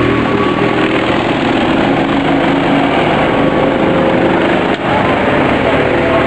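Go-kart engines running, loud and steady, with a momentary drop about three-quarters of the way through.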